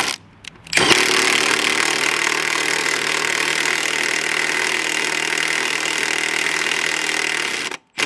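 A power tool running steadily for about seven seconds, driving home bolts that were first started by hand. It starts about a second in and cuts off suddenly just before the end.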